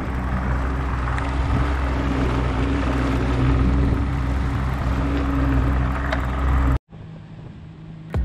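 A small fishing boat's motor running steadily under way, with rushing wind and water noise over a low hum. It cuts off suddenly about seven seconds in, leaving a much quieter background.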